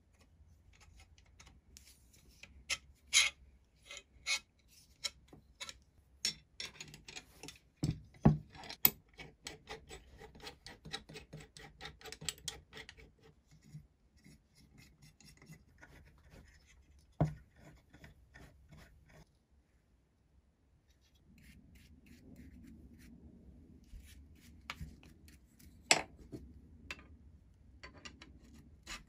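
Metal parts of a Record No 50 combination plane being handled and fitted together by hand: scattered sharp metal clinks, a stretch of quick ticking and scraping in the middle, and quieter rubbing near the end as the fence is worked along its rods.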